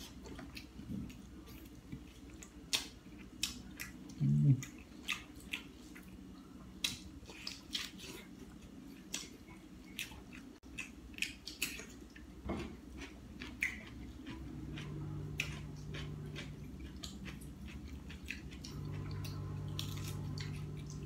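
Close mouth sounds of someone chewing and biting roasted duck: irregular smacks and clicks. There is a short voiced murmur about four seconds in, and a low steady hum comes in about two-thirds of the way through.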